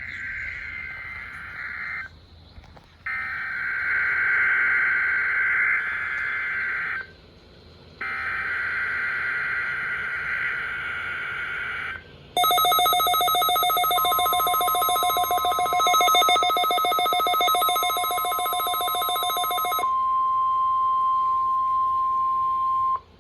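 Emergency Alert System Required Weekly Test: three bursts of the screeching SAME digital header, separated by short gaps, then a loud steady buzzing attention tone. A single pure tone is left sounding alone for the last few seconds.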